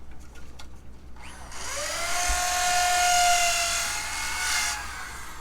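A handheld electric power tool spinning up with a rising whine about a second in, running at a steady high pitch for about three seconds, then cutting off and winding down.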